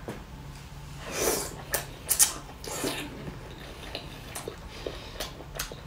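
A person eating with chopsticks from a hand-held bowl: a scatter of short clicks and brief mouth noises, over a faint steady hum.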